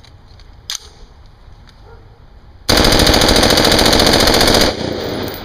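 An AR-style carbine firing one sustained burst of full-auto fire that lasts about two seconds, with the sound dying away after it stops. A single sharp click about a second in comes as a fresh magazine is loaded into the rifle.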